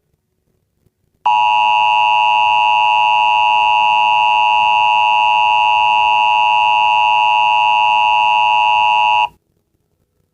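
Emergency Alert System attention signal from an EAS alert editor app: a steady, loud two-tone alarm tone that starts just over a second in, holds for about eight seconds and cuts off sharply. It is the signal that announces an emergency alert broadcast, here a mock warning.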